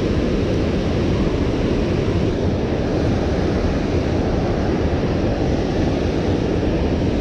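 Steady rushing of water pouring over a dam spillway, an unbroken noise with no pauses.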